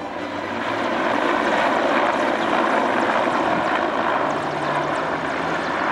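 Two Mil Mi-8/Mi-17-family transport helicopters flying overhead in a pair, their rotors and turbines making a steady noise that grows louder over the first second or two.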